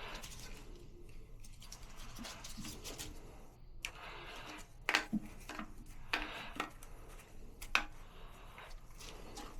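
Toilet tank parts being handled and fitted by hand: irregular rubbing and scraping with scattered clicks, three sharper clicks in the second half.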